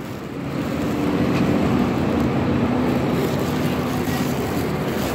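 Motor vehicle engine in street traffic, growing louder over the first second, then holding a steady low hum for a few seconds.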